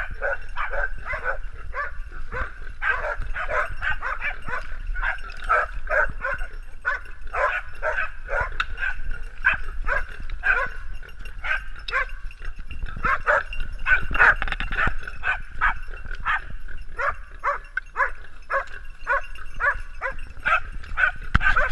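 A pack of hunting dogs, spaniels among them, barking nonstop in rapid, overlapping barks as they hold a wild boar at bay.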